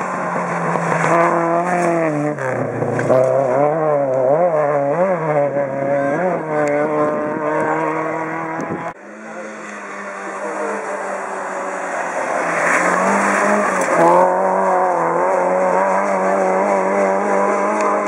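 Rally car engines at speed on a tarmac stage: a small hatchback revving up and down quickly through a bend, then, after an abrupt cut about nine seconds in, a second rally car holding a high, fairly steady engine note that rises as it nears and passes.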